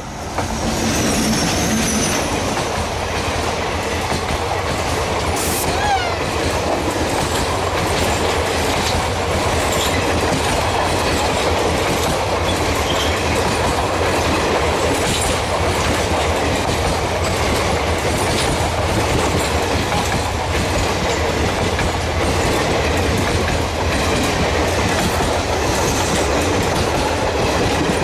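A rake of LHB passenger coaches rolling past at speed: a steady loud rush of wheels on rail with a clickety-clack over the rail joints.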